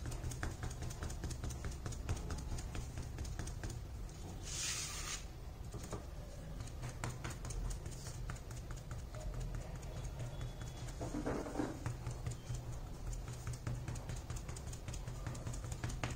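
Sponge dauber dabbing paint onto an MDF board: many quick, soft taps over a steady low hum, with a brief hiss about four and a half seconds in.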